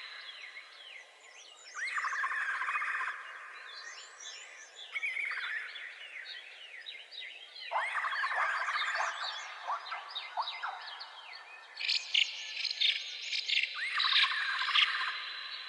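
Songbirds singing in short phrases of quick chirping notes, a new phrase every two to three seconds, over a steady high insect drone.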